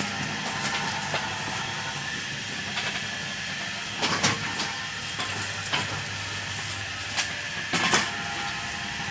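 Steady mechanical running hum with a hiss, broken by several short, loud hissing bursts about four, six, seven and eight seconds in.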